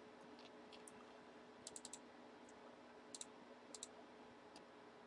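Faint clicking at a computer, mouse buttons and keys, in small clusters of one to four clicks, over a low steady hum.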